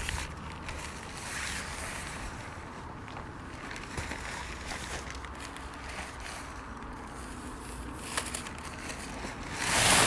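Wind buffeting the microphone with nylon fabric rustling as a folded pop-up tent is handled. Near the end comes a loud whoosh as the tent springs open.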